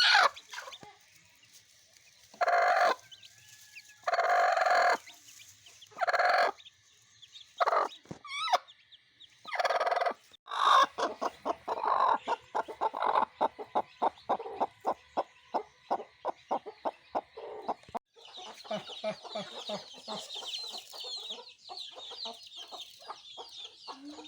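Chickens calling loudly several times, followed by a hen clucking in a rapid run of short clucks. From about three quarters of the way through, a dense chorus of high, thin peeping chirps from chicks takes over.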